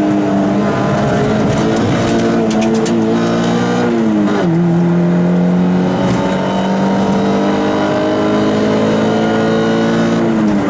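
Peugeot 106 rally car engine heard from inside the cabin, pulling hard along a straight. The engine note climbs, drops sharply about four seconds in at a gear change, then climbs steadily again as the car accelerates.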